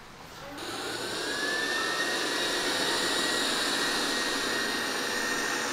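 Robot vacuum-mop's suction fan spinning up about half a second in: a whine that rises in pitch and then holds steady over an even rush of air.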